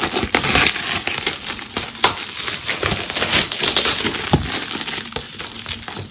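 Clear plastic wrapping being torn open and pulled off a folder by hand: a dense, continuous run of crinkling with sharp crackles.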